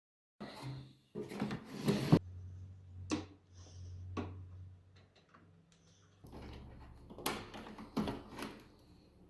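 Clicks, knocks and rattles of small parts being handled, over a steady low electrical hum that starts about two seconds in and shifts about six seconds in.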